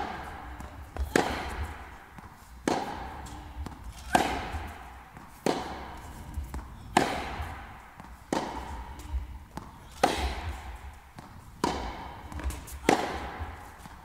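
Tennis rally on an indoor court: rackets strike the ball about every one and a half seconds, each hit echoing through the hall, with softer ball bounces between.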